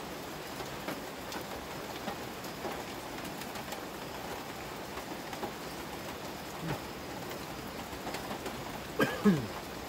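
Steady heavy rain falling, an even hiss throughout. A short falling sound rises out of it near the end.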